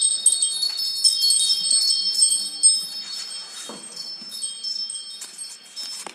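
High-pitched metal chimes jangling and ringing, several clear tones sounding together. They are struck again and again and slowly fade.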